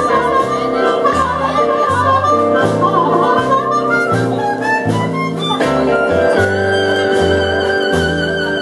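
Instrumental blues-rock break: a steady, repeating bass line under a lead solo that climbs in pitch about halfway through, then holds a long high note.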